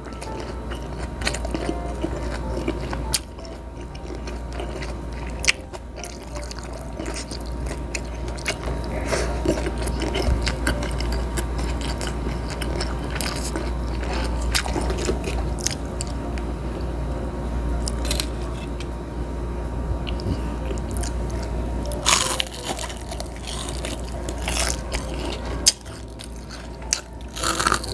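Close-miked chewing and biting of a person eating rice and grilled squid by hand, with wet mouth clicks and crackles throughout and a denser patch of them in the last quarter.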